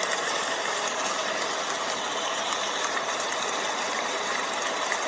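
Steady rain falling, an even continuous rush of rainfall.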